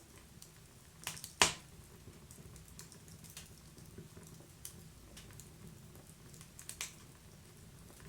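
Wood fire crackling: a low steady hiss with scattered sharp pops, the loudest about a second and a half in and a few more near the end.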